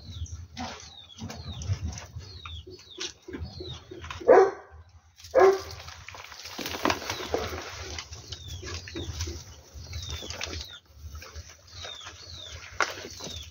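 Soil and roots rustling and crackling as a nun's hood orchid's root-bound clump is worked out of its clay pot. A bird repeats a short falling chirp throughout. Near the middle, two loud short animal calls sound about a second apart.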